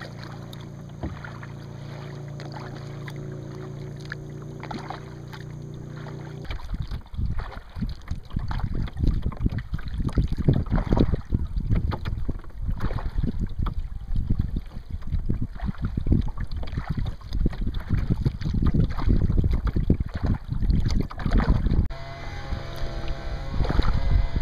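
A distant leaf blower's small engine drones steadily for the first several seconds. Then wind buffets the microphone in loud, uneven gusts that drown it out. The engine drone comes back near the end.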